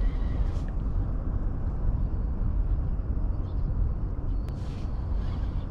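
Wind buffeting the microphone, a steady low rumble that rises and falls, with a few faint clicks in the second half.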